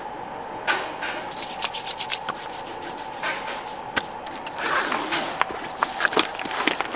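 Hands rubbing together and then rubbing against the face, a soft dry skin-on-skin swishing in several spells. Near the end, short clicks and rustles as a fabric pouch is handled.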